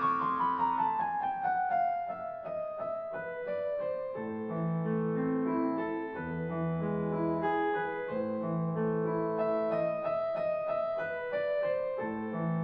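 Piano music: a slow melody over repeated low notes.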